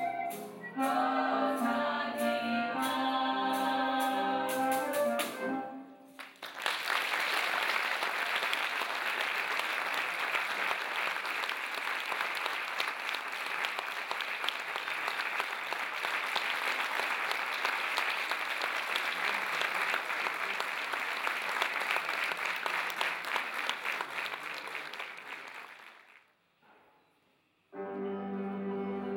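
A singing ensemble with instruments ends its song about six seconds in, and an audience applauds steadily for about twenty seconds. After a short silence, music starts again near the end.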